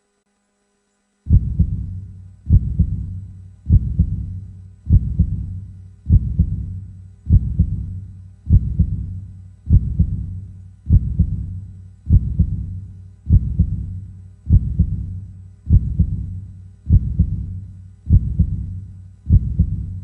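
Heartbeat sound effect: slow, regular low beats, about fifty a minute, starting a little over a second in.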